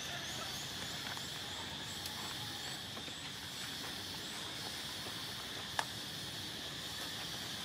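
Steady high insect drone from the undergrowth, with a run of quick, high repeated chirps over the first few seconds and a single sharp click about six seconds in.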